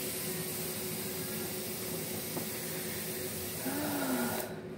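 A steady hiss with a faint steady hum beneath it. The hiss cuts off suddenly near the end.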